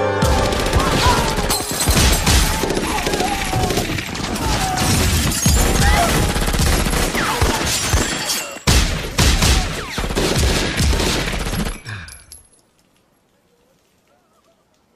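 Film soundtrack gunfire: a long volley of rapid shots from several guns, overlapping densely, with a brief break about nine seconds in. The firing stops abruptly about twelve seconds in.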